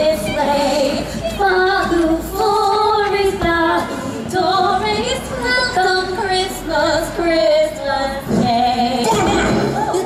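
Female voices singing a song with backing music, in long held notes that slide in pitch.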